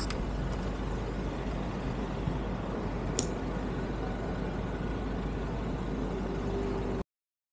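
Steady rumble of motor traffic on a city street, with a couple of sharp clicks. The sound cuts off suddenly near the end.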